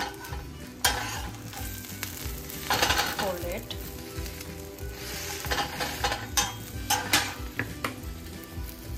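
An omelette sizzling in ghee on an iron tawa, with a metal turner scraping and clinking against the pan several times as it is worked under the omelette and turned.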